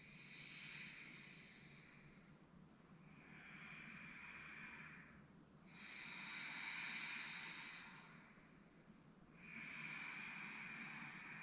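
A woman breathing slowly and audibly, four long, soft breaths of about two to three seconds each, paced to a seated chin-lift and elbow breathing exercise.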